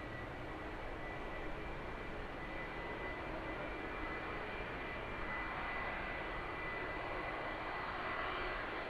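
Boeing 757 jet engines running: a steady rush with a thin high whine over it, the rush growing louder in the second half.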